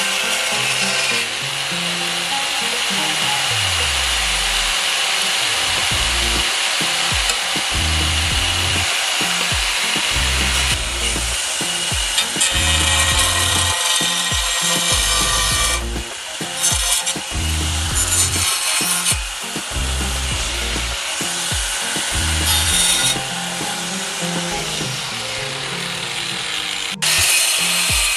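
Handheld angle grinder with a cutting disc cutting through a ceramic tile: a steady high grinding that swells and eases as the disc bites, with a brief break about a second before the end. Background music with a steady beat runs underneath.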